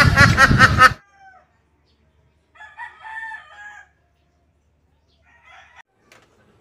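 A rapid run of loud clucking calls that stops about a second in. A rooster crows once about three seconds in, and a fainter short call comes near the end.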